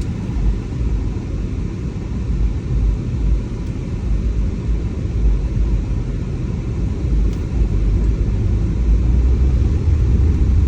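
A car being driven, heard from inside the cabin: a steady low rumble of road and engine noise that grows slightly louder near the end.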